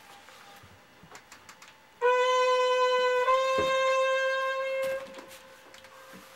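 Vinyl record playing on a turntable: the intro opens with one long held instrumental note about two seconds in, which steps slightly up in pitch partway and fades out after about three seconds. A few faint clicks come before it.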